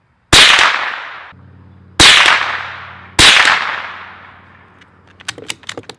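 Three shots from a Marlin 25N bolt-action .22 Long Rifle rifle, each a sharp crack with a ringing tail that fades over about a second, spaced a second or two apart. Near the end comes a quick run of metallic clicks as the bolt is worked.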